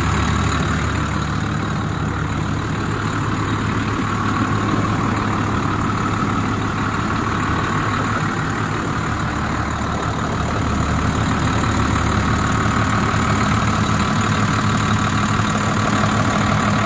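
New Holland TM165 tractor's diesel engine idling steadily.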